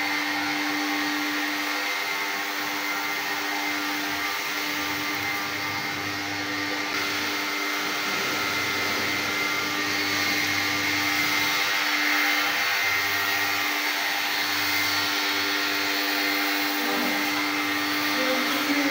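Electric vacuum cleaner motor running steadily, an even whirring hum with a whine over it.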